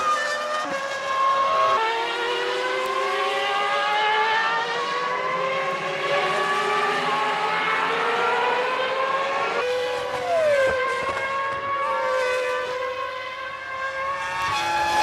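Several 1999 Formula One cars with 3.0-litre V10 engines running at high revs, their overlapping notes climbing in pitch as they accelerate. About ten and a half seconds in, one note drops sharply in pitch.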